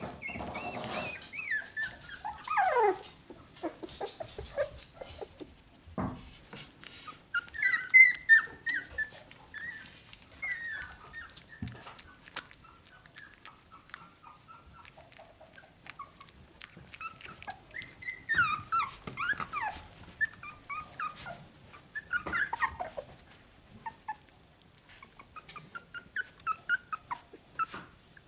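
Young Finnish Lapphund puppies whimpering and squeaking in short, high calls, some sliding down in pitch, in scattered bouts with brief pauses. Small clicks and rustles sound between the calls.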